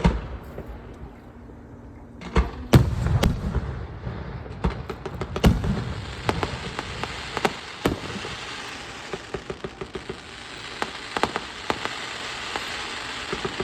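Fireworks going off: a series of sharp bangs, the loudest right at the start and about three seconds in, with a steady crackling hiss building up and quick runs of small pops near the end.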